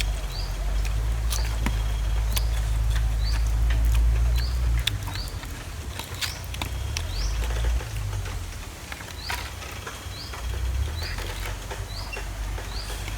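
A short, rising high-pitched chirp repeated about every two-thirds of a second, over a low rumble that eases about five seconds in, with scattered sharp clicks.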